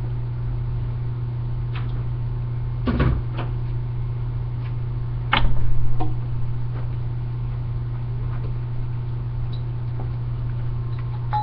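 A few clicks and knocks from objects being handled, the loudest about five and a half seconds in, over a steady low hum.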